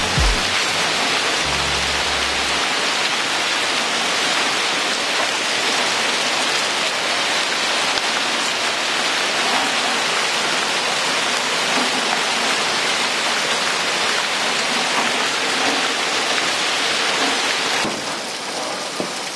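Hailstorm: hail and heavy rain pelting down on the ground and roofs in a dense, steady hiss that drops in level near the end.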